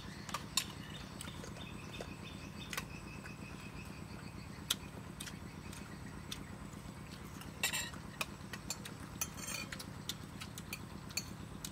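Metal spoons clinking and scraping on ceramic plates as people eat, in scattered sharp clicks that bunch up in the second half, over a steady low hum.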